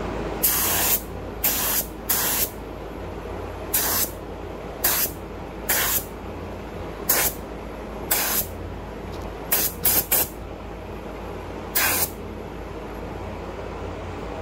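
Atom Mini X16 HVLP spray gun with a 1.3 mm tip spraying pearl base coat in about a dozen short triggered bursts of hiss, each under half a second, with gaps between and three in quick succession near the ten-second mark. A steady low hum runs underneath.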